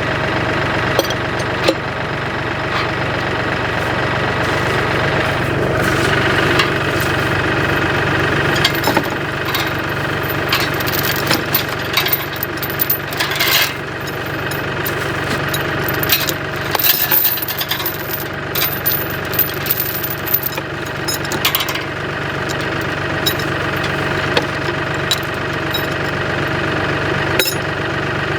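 An engine running at a steady speed, with scattered sharp clicks and metal knocks over it.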